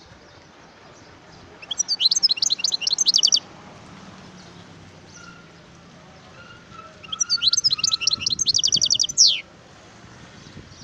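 Wild European goldfinch singing: two bursts of rapid, high twittering notes a few seconds apart, the second ending in a falling note.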